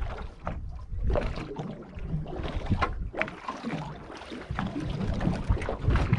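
Water slapping and splashing against a small boat's hull, with wind on the microphone and irregular knocks and clatter on deck.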